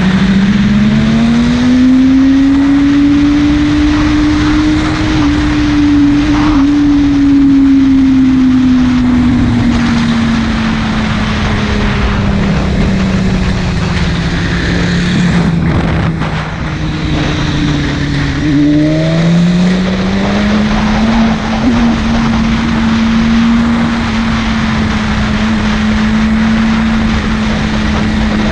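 Buell 1125CR's 1125 cc V-twin engine running hard under way. Its note climbs over the first few seconds, holds, slowly sinks as the revs come down, then climbs again about two-thirds of the way through and holds steady.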